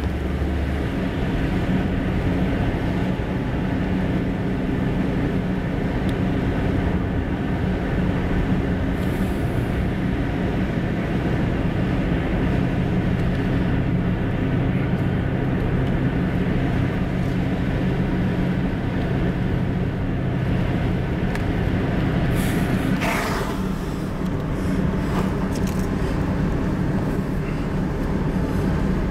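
Car driving: steady engine hum and road noise heard from inside the car, with a short sharper noise about three-quarters of the way through.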